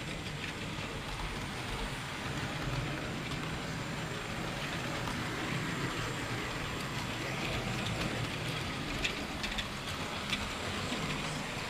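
Model train wheels rolling on the track, heard from a camera riding on the train: a steady rattling rumble, with a few sharp clicks near the end.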